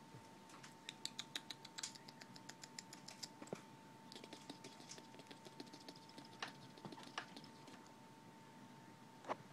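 A cat's claws clicking and scratching on a plastic mesh baby gate as it paws at it: quick runs of light clicks and taps in the first few seconds and again from about four to seven seconds in, quiet overall.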